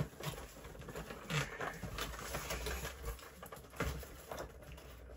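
Rustling, scraping and light knocks of toy packaging being pried open by hand, the box being eased open without tearing it.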